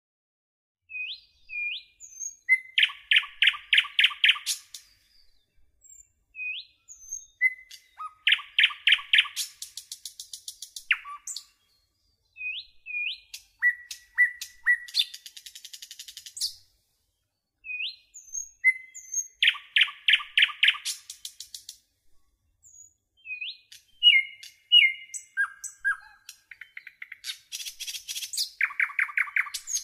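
Songbird singing: each phrase opens with a few short upslurred whistles, then breaks into a rapid trill, and the phrase comes round again every five or six seconds with brief silences between.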